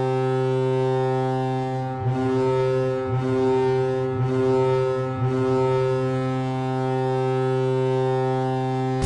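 Kahlenberg KPH-130 air horn sounding as a hockey goal horn: one long, loud, low blast held steady throughout, wavering briefly four times about a second apart around two to five seconds in.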